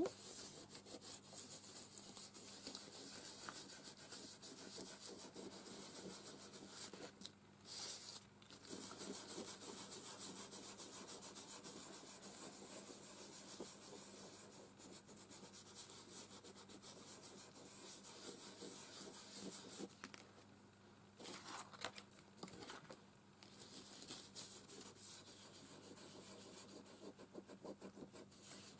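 A wipe scrubbing over paper, blending Gelato water-soluble crayon colour into the background: a faint, continuous rubbing with a few short pauses.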